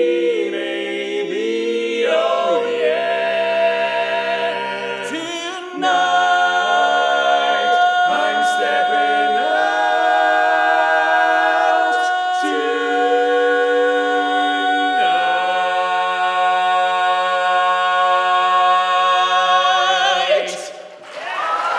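Barbershop quartet singing a cappella in close four-part harmony, the closing phrases of a song. It ends on a long held chord that cuts off about a second before the end, and applause starts right after.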